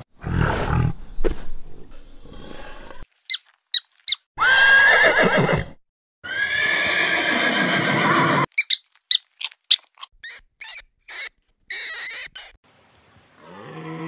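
Horses whinnying: separate short clips cut together with silent gaps between them. Two long whinnies sit in the middle, amid short sharp calls.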